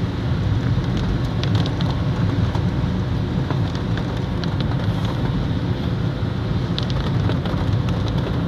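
Heavy rain on a car's roof and windscreen, heard from inside the moving car over a steady low rumble of the car running on the wet road, with scattered drops ticking.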